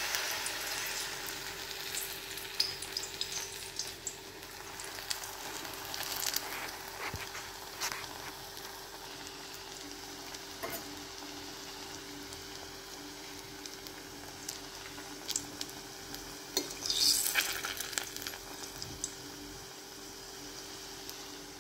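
A batter-coated green gram ball (sugiyan) deep-frying in hot oil in a steel kadai, a steady sizzle with scattered pops and crackles. The sizzle is loudest right after the ball goes into the oil, and there is a louder burst of crackling about three-quarters of the way through.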